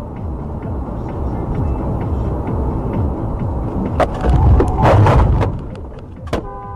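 Steady road and engine rumble of a moving car heard through a dashcam. About four seconds in, a loud jumble of noise with sharp knocks lasts about a second and a half as a vehicle swerves close ahead. Near the end there is a sharp click and a short steady beep-like tone.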